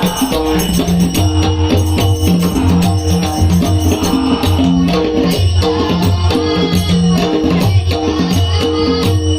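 Devotional abhang music, instrumental: sustained low pitched notes moving in a repeating pattern under fast, steady jingling percussion.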